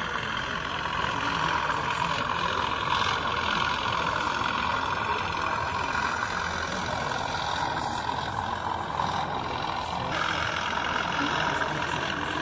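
Steady din of a busy exhibition hall: indistinct voices over a continuous engine-like hum.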